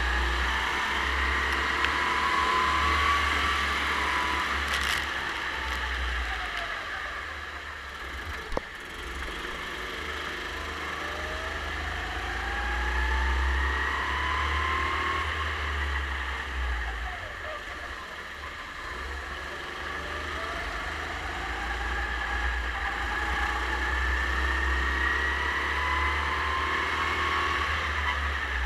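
Racing kart's engine heard from on board, revving up in long rising sweeps and dropping away again several times as the kart accelerates and slows for corners, over a steady low rumble. A single sharp knock comes about eight and a half seconds in.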